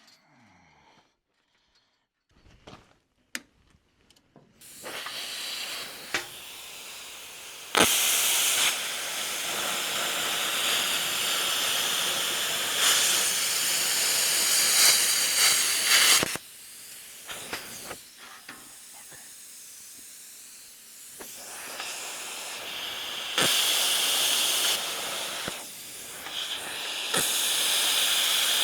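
A loud, steady hiss, like air or gas rushing under pressure, starts about five seconds in. It turns much louder at about eight seconds for some eight seconds, eases off, then swells again near the end.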